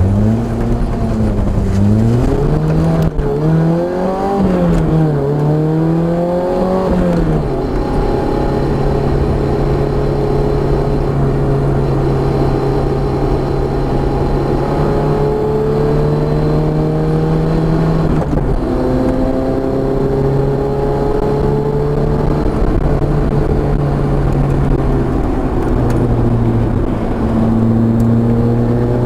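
Car engine at speed on a race track. For the first seven seconds or so the pitch rises and falls several times as it revs through the gears, then it holds a nearly steady pitch with small changes.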